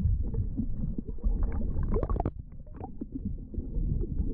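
Muffled, low rumbling water noise heard through an underwater camera's microphone, with scattered small clicks and pops, the most of them around the middle.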